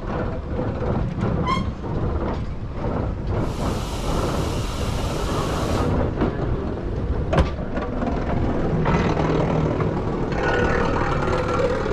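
Electric rack-railway train running, a steady rumble and rattle. A hiss starts about three and a half seconds in and lasts a couple of seconds, and there is a single sharp click a little after seven seconds.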